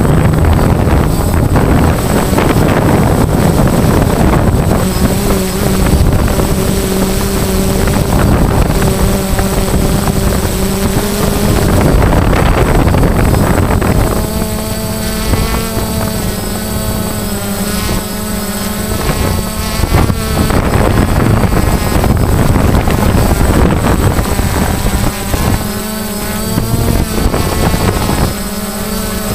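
DJI Phantom quadcopter's electric motors and propellers buzzing in flight, picked up by the GoPro slung beneath it, with wind rushing over the microphone. About halfway through the wind noise drops and the motor pitch wavers as the craft descends toward the ground.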